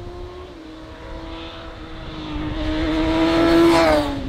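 Classic superbike racing motorcycle at high revs, approaching and passing close by: its engine note grows louder to a peak near the end, then drops in pitch as it goes past.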